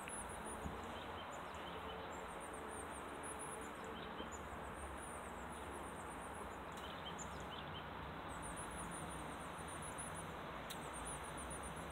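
Quiet outdoor ambience: a steady low background noise with runs of faint, very thin, high-pitched chirps from small birds in the pine trees, recurring every few seconds.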